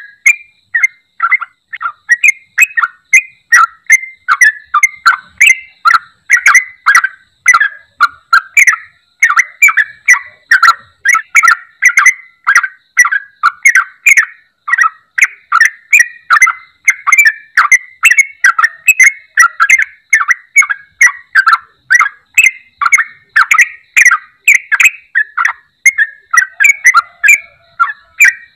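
Yellow-vented bulbul singing in full song: a continuous, unbroken run of short, bubbly chattering notes, about three a second.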